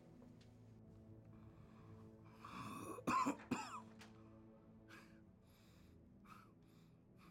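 A bleeding, badly hurt man coughing hard, three coughs in quick succession about three seconds in, followed by a few short breaths. A low steady drone runs underneath.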